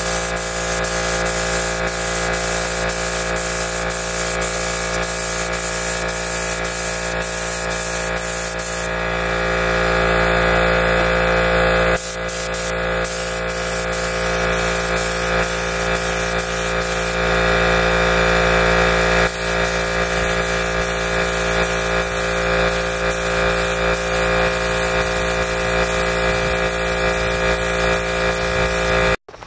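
Electric paint sprayer's turbine running steadily, a motor whine under the hiss of paint spraying from the gun, with brief dips about twelve and nineteen seconds in.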